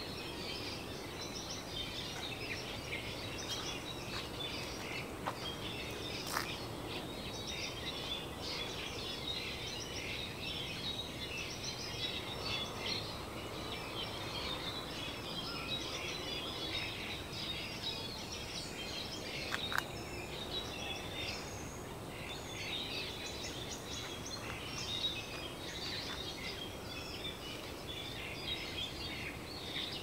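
A dense chorus of small birds chirping continuously over a steady, low rush of wind, with a couple of sharp ticks.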